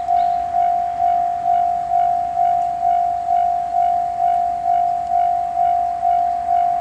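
Japanese railway level-crossing warning bell ringing its electronic "kan-kan" tone, one clear note repeated evenly about twice a second.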